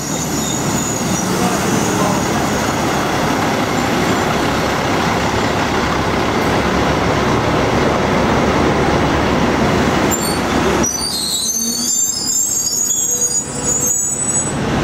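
Train noise at a station: a loud, steady rumble that cuts off abruptly about eleven seconds in, leaving a low hum with thin, high-pitched squealing tones.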